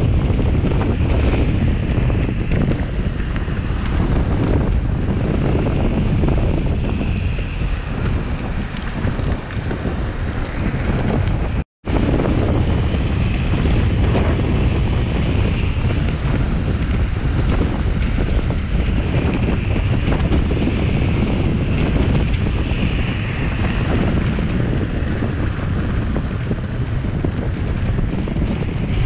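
Wind rushing over a rider-mounted action camera's microphone on a mountain bike moving fast down a paved road: a loud, steady low rumble. It cuts out to silence for an instant about twelve seconds in.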